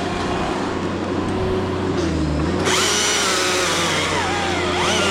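A small engine running steadily. About two and a half seconds in, a second, louder machine joins, its pitch rising and falling.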